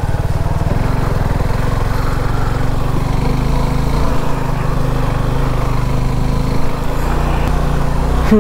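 Suzuki V-Strom SX 250's single-cylinder engine running steadily at low revs as the motorcycle is ridden slowly off-road.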